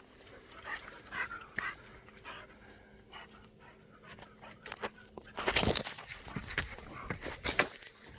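A dog panting, the quick breaths much louder and closer from about five and a half seconds in.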